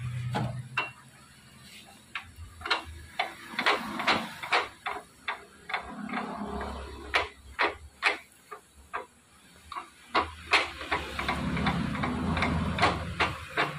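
Irregular metallic clicks and clinks from the parts of a cylinder boring machine being handled, as the boring bar and its clamp collar are turned and set against a motorcycle cylinder block. A low hum comes in at times.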